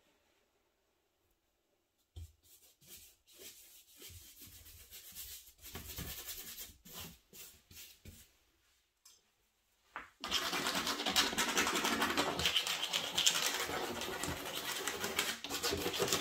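Paintbrush dragging paint across heavy watercolor paper in short, irregular scratchy strokes. About ten seconds in, a louder, steadier scratching starts as a tool is scraped back and forth through the wet paint.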